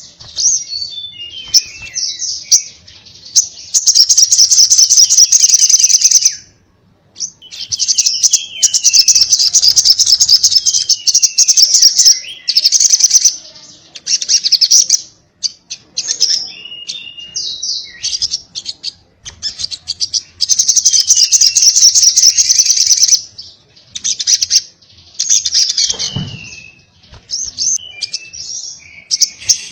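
Sogon (sogok ontong), a small sunbird, singing its excited chattering 'ngobra' song: long bursts of very fast, high trilling broken by short pauses, with quick falling whistled notes woven in.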